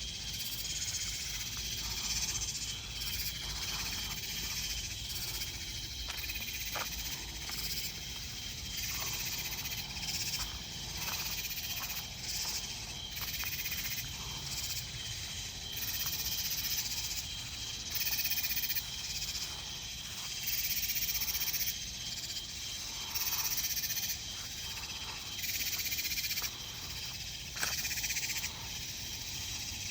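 Night chorus of crickets, other insects and frogs: a steady high trill throughout, with louder buzzing calls that start and stop every second or two.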